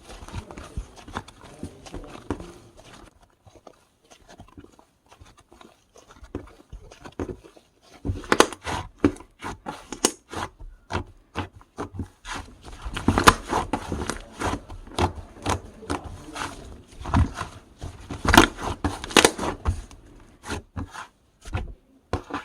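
Slime being worked by hand, making irregular sticky clicks and pops. It goes faint for a few seconds, then the clicks come thick and fast through the second half.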